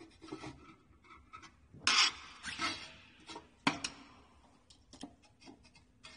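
Hand screwdriver turning a screw into a heat sealer's metal arm. It makes irregular scraping and rubbing, loudest in a rasping stretch about two seconds in, then a sharp click and a few light ticks.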